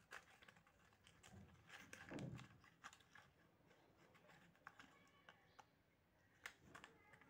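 Faint handling sounds: soft scattered clicks and rustles as a small cardboard box is opened and a digital thermometer with its coiled probe cable is taken out.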